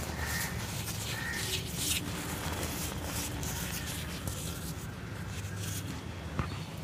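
Soft dry cement chunks crushed and rubbed between the fingers, a gritty crumbling with powder sifting down. The crunching is densest in the first couple of seconds and softer after.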